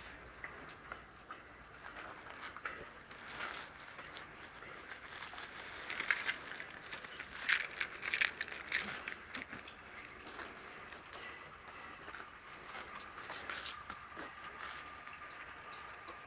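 Footsteps crunching and crackling on paving glazed with freezing rain, loudest in a cluster of steps about six to nine seconds in, over a steady hiss of sleet falling.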